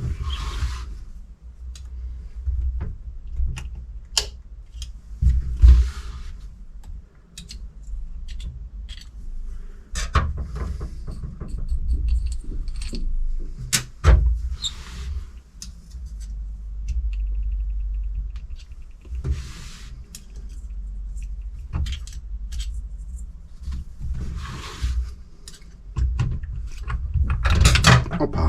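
Hand work on a disassembled electric supercharger: scattered clicks and knocks of metal parts and tools, with short scraping or rustling noises every few seconds as the cartridge is worked loose.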